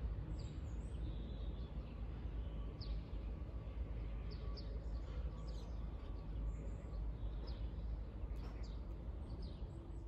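Outdoor ambience: scattered short, falling bird chirps over a steady low rumble.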